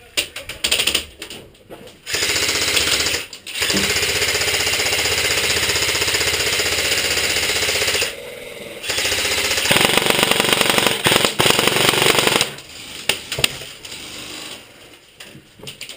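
Airsoft gun firing long full-auto bursts close to the microphone, a fast even rattle of shots. There are three bursts: a short one about two seconds in, then two long ones of several seconds each, with a few single pops before and after.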